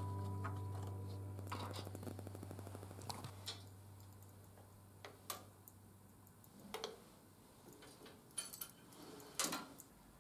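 Background music fading out over the first few seconds, then scattered light clicks and knocks of metal motorcycle parts and fasteners being handled and fitted.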